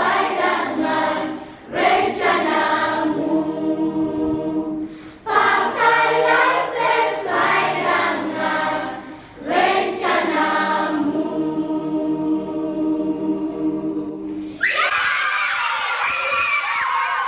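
A choir singing a song in Malay a cappella, in long phrases of held notes with short pauses for breath between them. About fifteen seconds in, the singing stops and a different, noisier and higher-pitched sound takes over.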